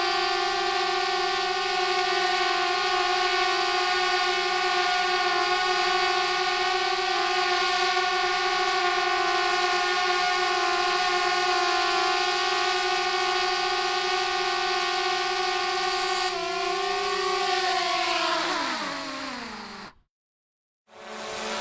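Drone propellers whining at a steady pitch, then winding down in pitch and fading out. After a short silence, another drone whine starts near the end.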